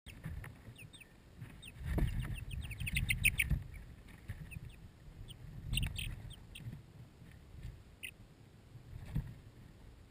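Young Light Sussex chicks peeping: short high peeps throughout, bunched into a quick run about two to three seconds in, then scattered single peeps. A few low thumps sound underneath.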